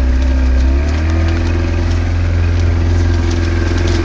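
Motorboat engine running steadily, picking up speed slightly about a second in and then holding an even pitch.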